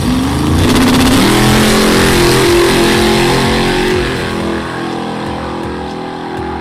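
Car engine revving hard: its pitch climbs over the first second, holds high, and eases off after about four seconds.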